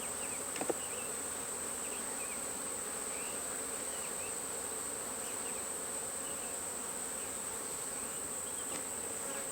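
Honeybees buzzing around an open hive: a steady, dense drone with individual bees' short whines passing close by. A thin high steady tone sits over it, and there is one small click about a second in.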